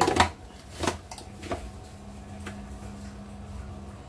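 Plastic lid of an electric food chopper being pressed and twisted onto its bowl: several sharp plastic clicks and knocks, loudest at the start, then a few fainter ticks, over a faint steady hum.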